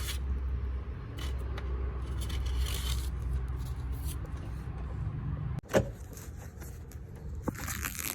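Scattered scraping and peeling from old weather stripping being worked off a door frame, over a steady low rumble that stops about two thirds of the way through. A sharp knock follows, then a short rustle near the end.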